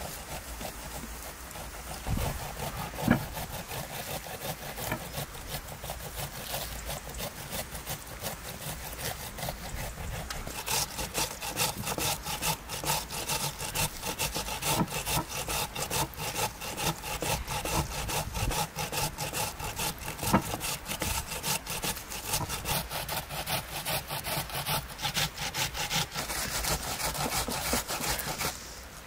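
A knife cutting into a raw whole lamb carcass with quick back-and-forth sawing strokes, a dense rasping rhythm that grows louder about ten seconds in. There is a sharp knock about three seconds in and another around twenty seconds.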